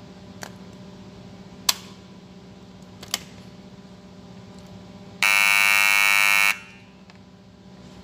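A 230 V alarm buzzer wired through a float switch and relay sounds loudly once for about a second and a half, about five seconds in, as the float switch is tilted to signal low tank water. Before it come three sharp clicks, over a steady low hum.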